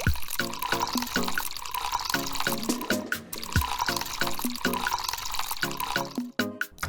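Background music: a bouncy tune of short notes repeating in a steady rhythm, with a few quick falling glides like water-drop plops.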